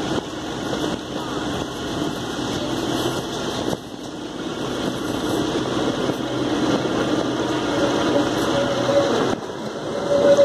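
Kalka–Shimla narrow-gauge passenger train running along the line, heard from a coach window: a steady rumble and rattle of the coaches on the track, dipping briefly twice. A thin squeal comes in briefly near the end.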